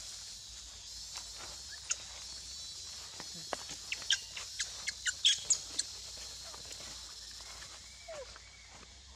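Baby macaque giving a quick run of short, sharp, high-pitched squeaks about four to six seconds in while an adult grabs and holds it. A steady high hiss runs underneath.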